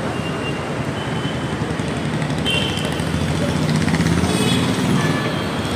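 Busy city street traffic, a steady mix of motorbike and vehicle engines, with one vehicle passing close and getting louder between about three and a half and five seconds in.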